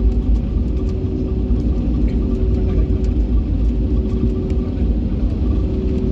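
Airliner cabin noise during taxi or takeoff: a steady low rumble from the aircraft's engines and its movement, with a steady mid-pitched hum running through it.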